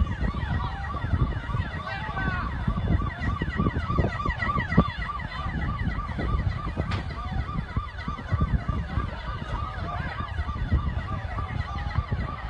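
Emergency vehicle sirens going in fast rise-and-fall cycles, about two a second, with other siren tones overlapping, over a steady low rumble.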